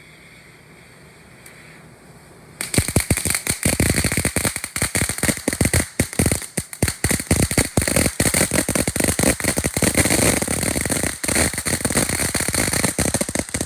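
Ground firework going off in a dense barrage of rapid sharp cracks, a 'minefield' crackle effect. It starts suddenly about two and a half seconds in, after a faint hiss, and lasts about eleven seconds before cutting off near the end.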